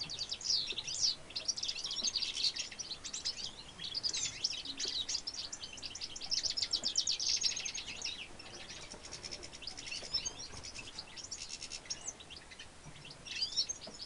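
A goldfinch × redpoll hybrid finch singing a long, high twittering song of fast trills, with a couple of short pauses.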